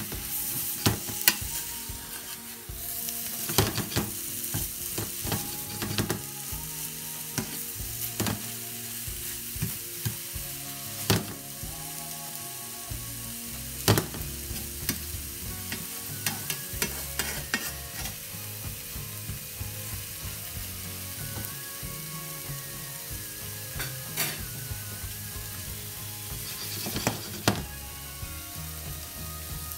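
Scrambled eggs with sautéed vegetables and ham sizzling in a hot pan as they are stirred and turned with a slotted spatula, the spatula clicking and scraping against the pan again and again.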